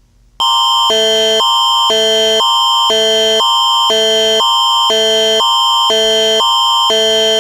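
Canadian Alert Ready attention signal, the electronic alert tone that opens a Canadian emergency broadcast: two chords alternating every half second or so over a constant high tone, starting about half a second in. It signals an emergency alert, here a civil emergency, that is about to be read.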